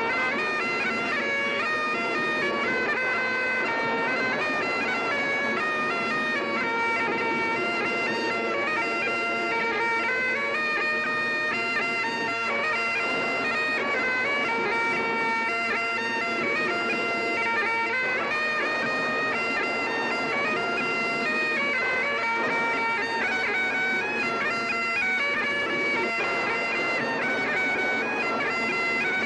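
Bagpipes playing a tune, the melody notes stepping up and down over a continuous drone.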